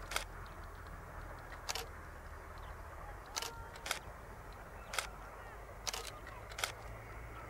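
Camera shutters clicking irregularly, about seven sharp clicks in all, two of them close together in the middle. Beneath them runs a faint steady low rumble.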